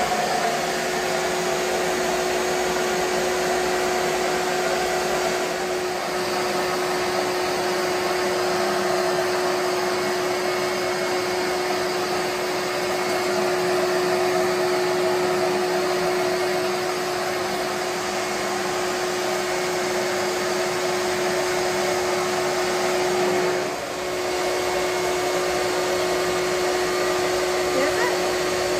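Vacuum motor running steadily with a constant whine, dipping briefly about 24 seconds in.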